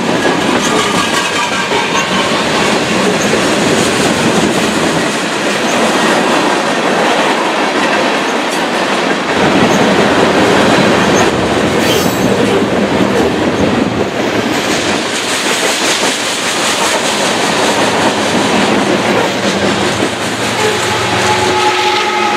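Freight cars of a passing train rolling by close at hand, steel wheels clacking over the rail joints in a steady loud rumble.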